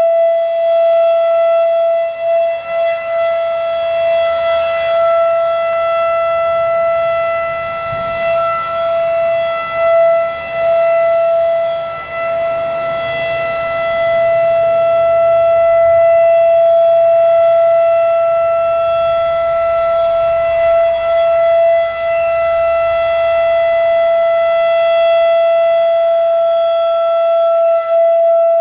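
Federal Signal Thunderbeam RSH-10 electronic outdoor warning siren sounding its steady alert tone: one held pitch that does not rise or fall, with its loudness wavering slightly.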